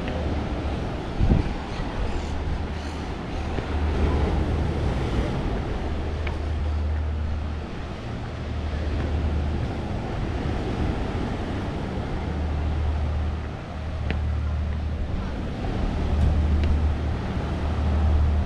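Wind buffeting the microphone in uneven low rumbles, over a steady outdoor wash of noise.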